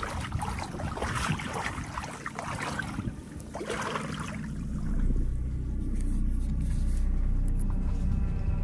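Small waves lapping and splashing against mangrove roots at the shoreline, with a steady low rumble taking over about halfway through.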